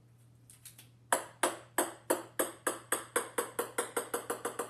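Ping-pong ball bouncing on a hard floor: a few light taps, then from about a second in a run of sharp clicks that come faster and faster and slowly get softer as the ball settles.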